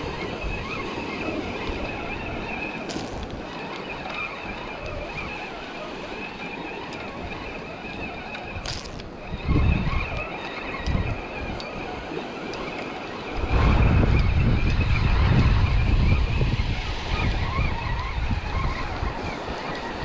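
Small surf washing on the beach, with wind buffeting the microphone in heavy rumbling gusts about halfway through and again for several seconds later on. Under it, a spinning reel is being cranked steadily, a faint whir.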